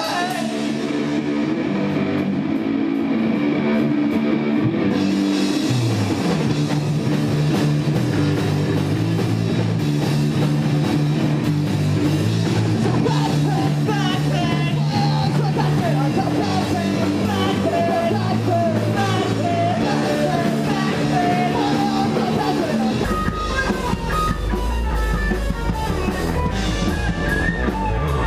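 Live rock band playing: guitar, bass and drum kit, with a singer's voice through the middle stretch. About three-quarters of the way in the low end gets much heavier as the band comes in harder.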